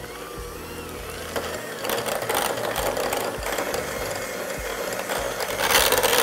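KitchenAid 7-speed hand mixer running, its beaters creaming softened cream cheese in a glass bowl: a steady motor whine under the churning, getting louder about two seconds in and again near the end.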